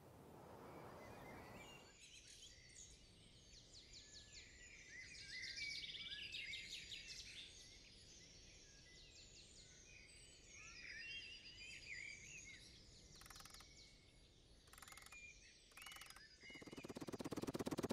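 Birds chirping and calling, many short overlapping calls with rising and falling notes, over faint background hiss. Near the end come three short bursts of hiss, then a loud, fast-pulsing buzz starts about a second before the end.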